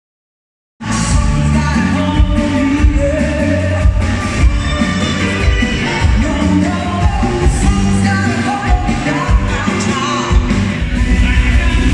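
Live pop-rock band (electric guitars, bass, keyboards and drums) playing loudly with a lead singer, recorded on a phone. It cuts in abruptly about a second in, after silence.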